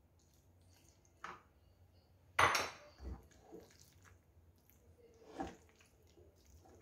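A few short, soft knocks and scrapes of a bowl and a silicone spatula against a pan as cooked broccoli is tipped into creamy pasta and stirred in. The loudest knock comes about two and a half seconds in.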